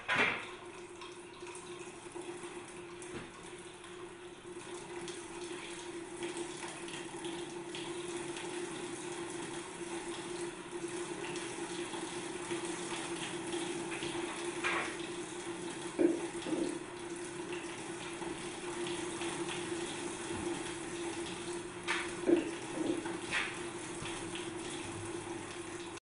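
Water running down a wooden model's chutes and splashing onto a small water wheel in the trough below, with a steady low hum underneath. A few louder splashes or knocks stand out, one just at the start and a couple in the second half.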